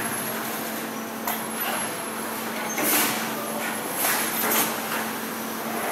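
Factory machinery running with a steady hum, with several short hisses of air breaking through.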